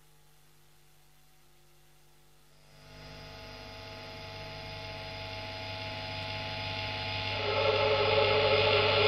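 Faint hum, then about three seconds in a sustained distorted electric guitar chord swells in and grows steadily louder.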